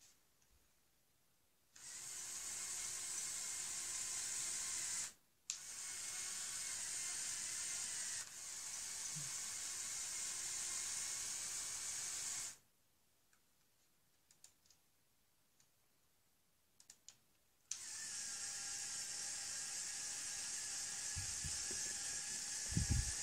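Small electric motors and plastic gearing of a LEGO Technic radio-controlled mobile crane whining steadily in several runs. They stop for about five seconds with only a few faint clicks, then run again as the boom is raised.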